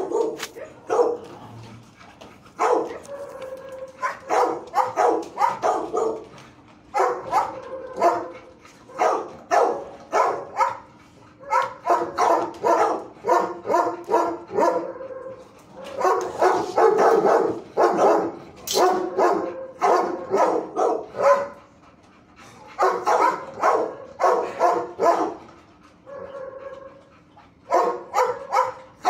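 Dogs barking in a shelter kennel, in runs of rapid, sharp barks that come again and again with short pauses between them.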